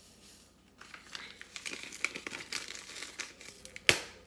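Foil cheese-powder packet crinkling as it is handled and shaken out over the pot, starting about a second in. A single sharp tap near the end.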